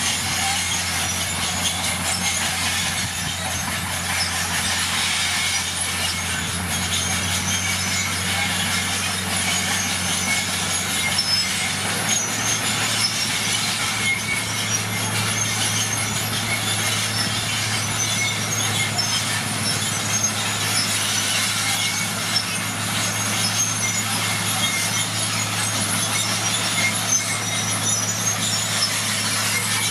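Bulldozer diesel engine running under work, with its steel tracks clanking and squealing. The engine note rises slightly about twelve seconds in.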